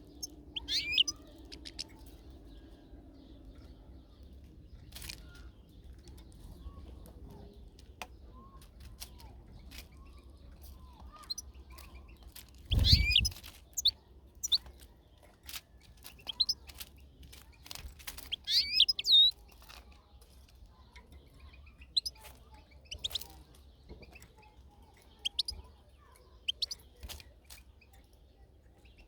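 European goldfinch calling in short, scattered high chirps and twitters. There is one loud thump about thirteen seconds in.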